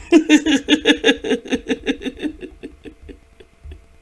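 A woman laughing: a quick, rhythmic run of laughs, loudest at the start and trailing off about three seconds in.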